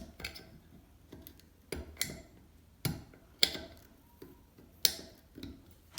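A tool clicking and tapping against a mixer tap's handle while prying out the small plastic cover cap over its grub screw: irregular sharp clicks, a few of them much louder.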